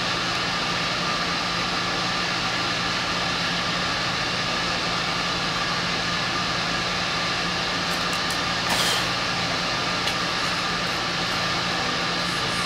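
Steady mechanical drone of large ventilation fans, the kind that keep an air-supported sports dome inflated, with a constant low hum and a few fixed tones above it. A brief noise breaks in about nine seconds in, with a faint click a second later.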